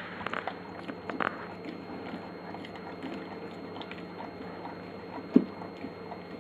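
Flat-coated retriever eating a crumbly cake of dog food from a glass plate: licking and chewing with scattered small clicks, and one sharp louder click about five seconds in.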